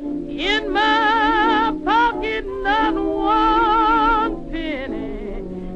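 Background music with a wavering vibrato melody over a steady low accompaniment.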